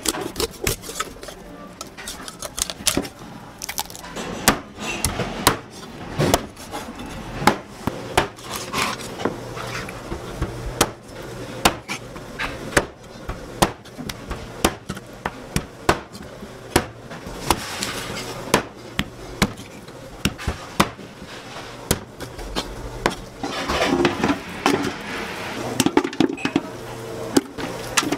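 A cleaver chopping a whole raw chicken into pieces on a plastic cutting board: repeated sharp chops at an uneven pace of about one or two a second.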